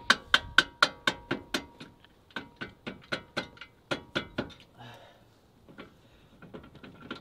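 Quick hammer taps on a steel socket extension, about four a second, driving a stuck suspension bolt out. The blows turn lighter after about a second and a half and stop about four and a half seconds in, leaving a few faint clicks.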